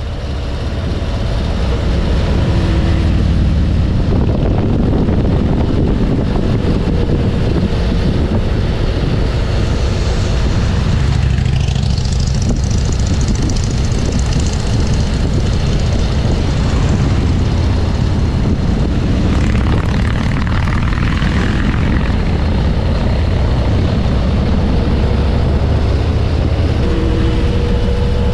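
Harley-Davidson motorcycle's V-twin engine running steadily under way, a deep continuous drone with a haze of wind and road noise over it.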